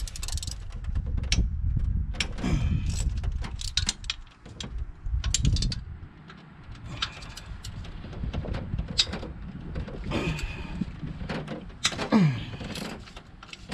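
A hand socket ratchet working bolts loose on an engine's intake: the wrench clicks in irregular runs, with metal scraping and squeaking between strokes.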